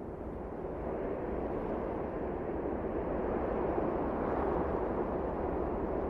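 Steady rushing noise of wind and surf on an open seashore, growing a little louder over the first second.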